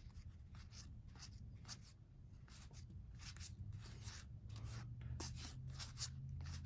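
Linen-finish game cards being flipped through by hand: an irregular run of soft slides and flicks, a few a second, over a low steady hum.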